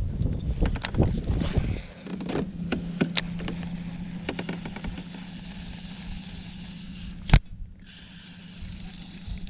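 Knocks and rustling over a low rumble, then a steady low hum of the Old Town AutoPilot 136 kayak's built-in electric motor from about two seconds in. One sharp click sounds about seven seconds in.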